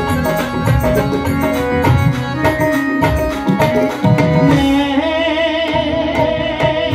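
Live Indian devotional band music: a drum beaten with a stick in a steady, busy rhythm over keyboard notes. About two-thirds of the way through the drumming drops out and held notes with a wavering vibrato carry on.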